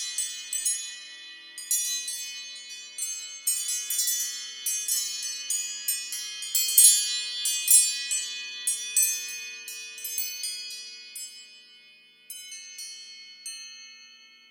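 iPhone ringtone of high, chime-like struck notes in quick cascades, each ringing on briefly. The notes thin out after about eleven seconds and the tone fades away near the end.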